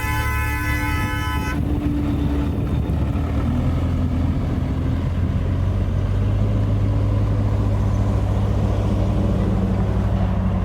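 JCB 3DX backhoe loader's diesel engine running steadily. A vehicle horn sounds at the start and cuts off about one and a half seconds in.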